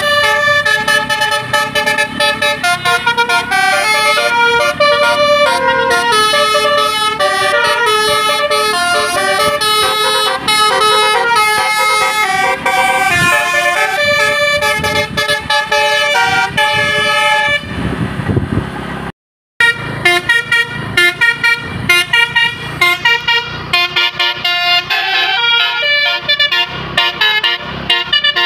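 Tour bus 'basuri' musical horn playing a melody of quickly changing horn notes, loud and continuous. It breaks off for a moment about nineteen seconds in.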